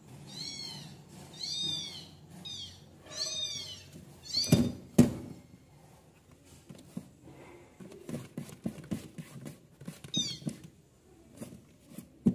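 A cat mewing in a quick series of short, high-pitched mews, then two loud knocks about four and a half and five seconds in, followed by scattered light taps and one more short run of mews near ten seconds in.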